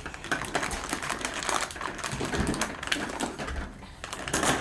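Dense, irregular crackling and clicking of a small toy package being handled and torn open.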